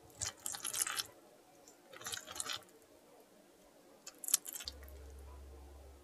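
Metal spoon cutting through a fried egg and scooping fried rice on a ceramic plate: two crackly, scraping passes, then a few sharp clicks of the spoon against the plate about four seconds in. A faint low hum comes in near the end.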